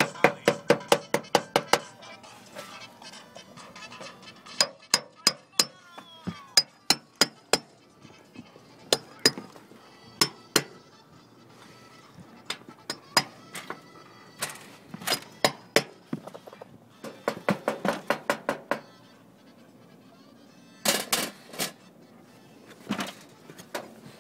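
Hammer striking a flat tool to drive the top edge of sheet-metal chimney flashing into a brick mortar joint: sharp metallic taps with a short ring. A quick run of about six taps a second at first, then scattered single taps and short runs, with the loudest near the end.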